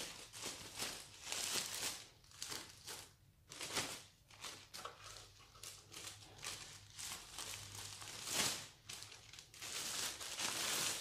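Thin LDPE plastic bag crinkling and rustling by hand in irregular bursts as a car head unit is worked out of it.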